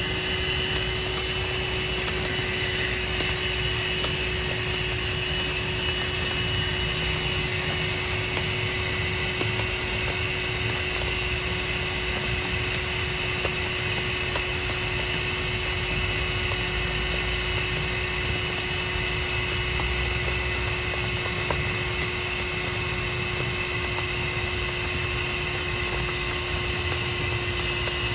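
A small electric motor blower running steadily at one pitch, with a whir over a rushing hiss of air.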